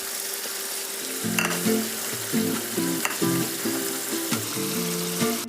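Chicken curry sizzling in a frying pan as crushed ginger leaves are added, with a couple of light clicks of a utensil against the pan. Background music with a stepping melody comes in about a second in.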